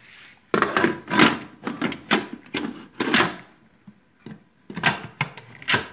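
Metal lid of a Philips Walita electric pressure cooker being set on the pot and turned to close it: a run of scrapes and knocks for about three seconds, then another short cluster near the end.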